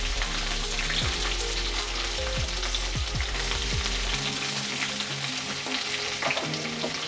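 Sliced onions sizzling as they fry in hot mustard oil in a metal kadai, with occasional scrapes and clicks of stirring. A low hum underneath stops about four seconds in.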